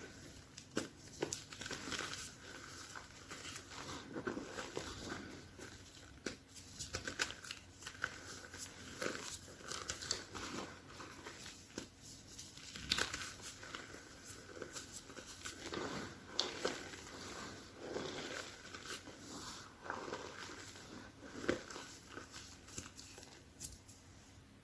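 A pressed block of chalk being crushed, crumbling with a dense, irregular run of crackles and a squeaky sound.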